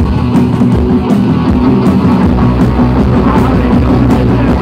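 Live rock band playing loud: distorted electric guitars, bass guitar and a drum kit keeping a steady beat.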